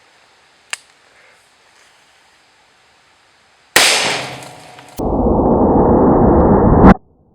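A single shot from a Taurus Judge revolver firing a .45 Colt round, about four seconds in, with a sharp crack that dies away over about a second. It is followed abruptly by a louder, dull, muffled noise lasting about two seconds that cuts off suddenly.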